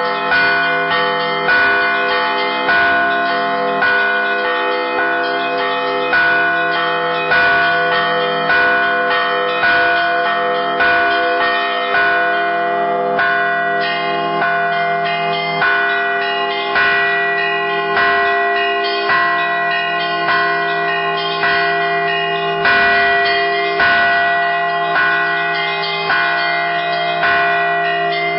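Church bells rung in a festive Easter peal. A deep bell is struck about every 1.2 seconds while smaller, higher bells chime quickly between its strokes, and the low bells hum on under them.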